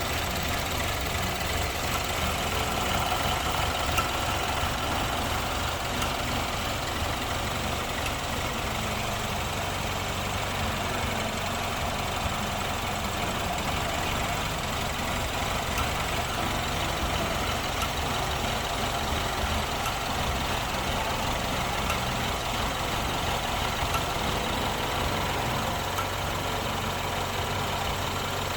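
2015 BMW engine idling steadily, the engine being checked for a misfire.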